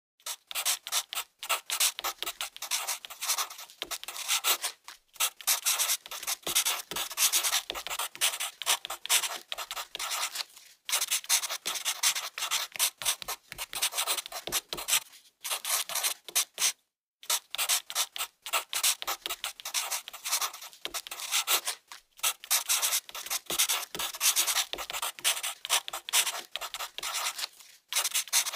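Sketching: a drawing tool scratching across the drawing surface in quick, short strokes, in runs of several seconds broken by brief pauses.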